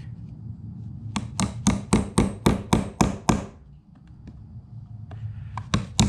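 Claw hammer driving the nails of a blue plastic electrical box into a wooden stud: a quick run of about ten sharp strikes, about four a second, then a pause and a second run starting near the end.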